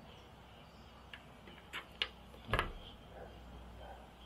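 Faint handling noise from a smartphone held in the hand: a few light clicks, then a louder soft knock about two and a half seconds in.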